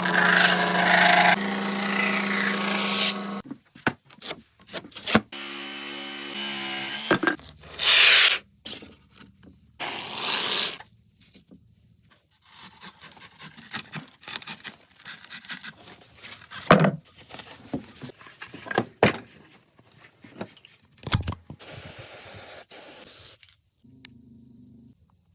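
Tools working the body of a hand-made scoter decoy: a power tool runs steadily in two short spells, then irregular sawing, scraping and rubbing strokes follow.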